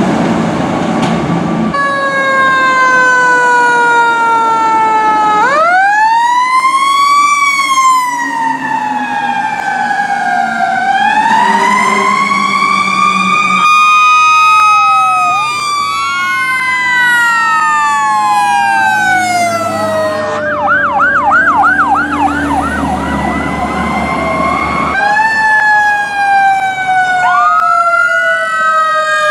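Fire truck sirens wailing in long rising and falling sweeps, with a fast yelp for about two seconds a little past the middle. The sound changes abruptly several times as one responding truck gives way to another, over a low engine rumble.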